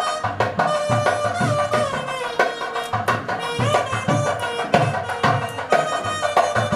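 Music: a held melodic line over drum strokes about twice a second.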